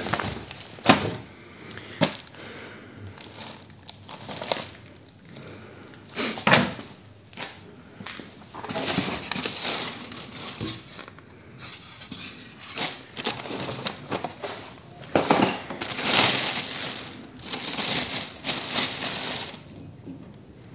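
Plastic wrapping film and packing material rustling and crinkling as hands handle them, in irregular bursts, with a few sharp clicks and knocks.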